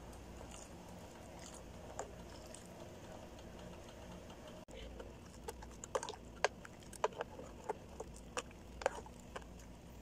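Metal utensil stirring simmering coconut-milk sauce in a saucepan, with a low steady hum. In the second half it clinks sharply against the pan about ten times in an irregular run.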